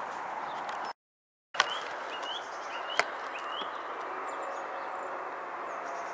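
Steady outdoor background noise with a small bird repeating a short rising chirp four times. About a second in, the sound drops out briefly at an edit and comes back with a sharp click; a second click comes about three seconds in.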